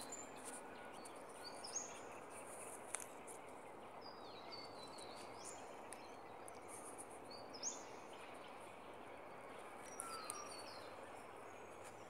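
Short high bird chirps every few seconds over a steady low outdoor hiss, with a few faint clicks and rustles of the camera being handled among leaves and twigs.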